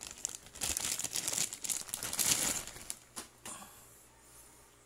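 Clear plastic wrapping crinkling and rustling as it is pulled off a new motorcycle rear shock absorber, with a couple of light knocks about three seconds in. After that the rustling stops.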